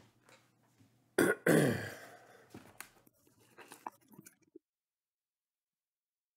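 A man clearing his throat, a short catch followed by a longer rasping clear about a second and a half in. Faint knocks of cardboard boxes being handled follow, then the sound cuts off completely.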